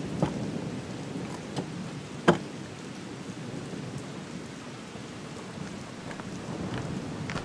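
Steady rain, with a few sharp ticks of single drops, the loudest about two seconds in.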